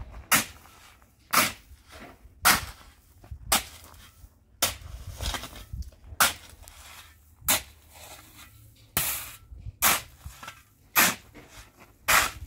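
Steel spade scraping into a pile of sand and gravel, about a stroke a second, each a short sharp scrape.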